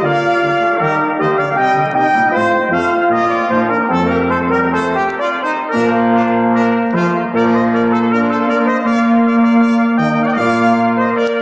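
A brass quintet of two trumpets, French horn, trombone and tuba playing a piece together. Several parts move in chords over a changing bass line, and from about six seconds in one middle note is held steadily under the moving upper parts.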